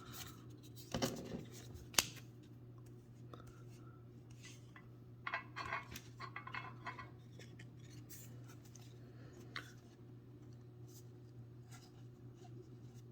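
Faint handling of trading cards and their packaging: scattered clicks and taps, a sharp one about two seconds in and a cluster of soft rustles and taps around the middle, over a low steady hum.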